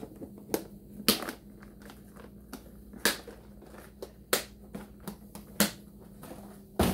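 Plastic tackle box being closed and handled, its plastic latches clicking shut: about half a dozen sharp clicks and knocks, each a second or so apart.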